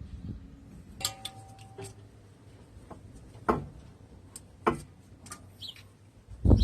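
Scattered knocks and clinks of tools and brake parts being handled during a front brake rotor change, about six separate strikes. The one about a second in rings briefly like struck metal, and the loudest comes at the end.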